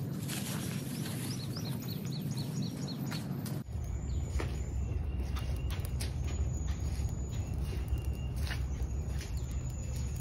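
A songbird chirping in a quick series over a light hiss, then, from about four seconds in, a steady low rumble with sharp crackles as the fire in a small metal can flares up.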